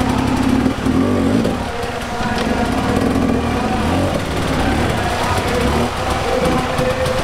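Enduro dirt bike engine revving up and down as the bike climbs through a rocky, water-filled creek bed.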